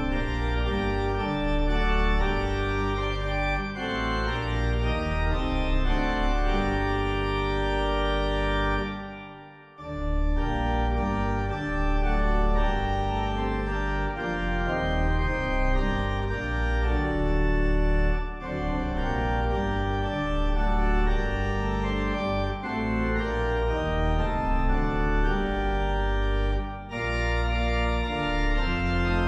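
Organ music playing slow, sustained chords. It breaks off briefly about ten seconds in, then goes on.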